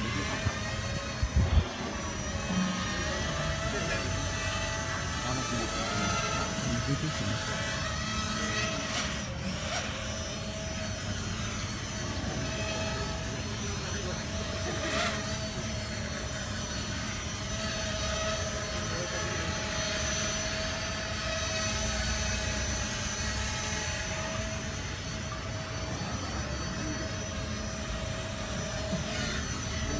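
Small quadcopter drone's propellers and motors humming, a steady whine of several tones that shifts a little in pitch as it flies. A few sharp knocks about one and a half seconds in.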